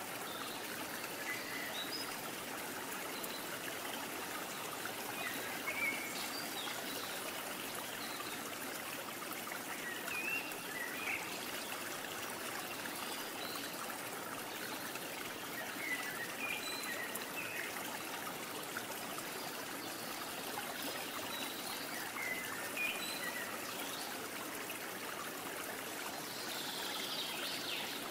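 A small stream babbling and trickling steadily, with short high chirp-like sounds scattered through.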